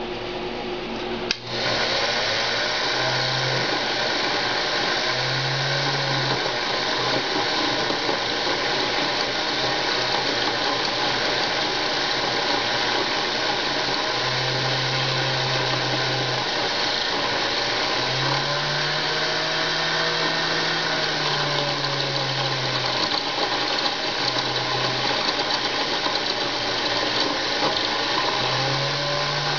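Unimat SL mini lathe switched on with a click about a second in, then its motor and spindle running steadily while turning down the threads of a welding contact tip. A lower hum comes and goes every few seconds.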